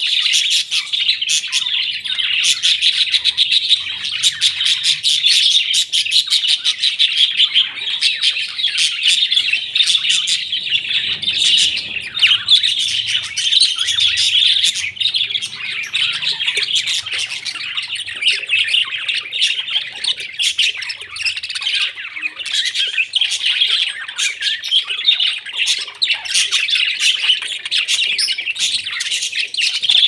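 A flock of budgerigars chattering and warbling: many rapid chirps overlapping without a pause.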